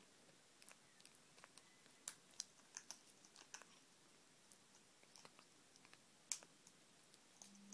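African grey parrot eating fruit jelly from a plastic cup: soft, irregular clicks and smacks of its beak, with one louder click a little over six seconds in.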